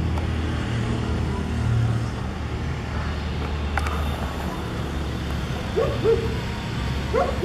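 Steady low rumble of urban road traffic, with a single click about four seconds in and two short rising calls near the end.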